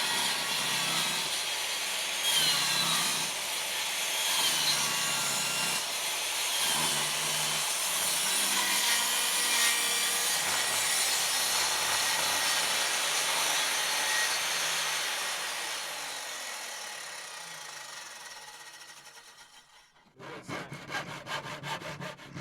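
Circular saw cutting through a pine board, running steadily and then fading away over several seconds as the blade winds down. Near the end comes a quick run of rapid knocks.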